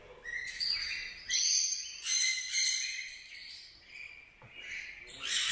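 A flock of small parrots, cockatiels among them, calling with repeated shrill, high-pitched screeches, several calls overlapping in bursts.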